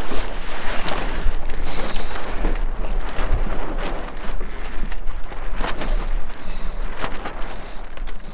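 Wind rumbling on the microphone with irregular knocks, rattles and flapping from a J24 sailboat's sails and rigging as it tacks.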